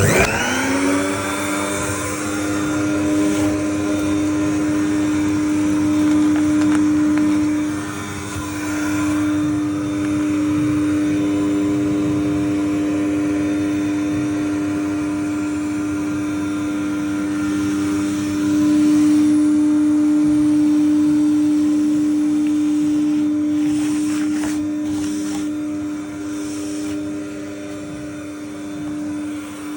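A vacuum cleaner more than 30 years old switched on: its motor spins up with a quickly rising whine, then runs steadily with a strong hum, its loudness swelling and dipping at times.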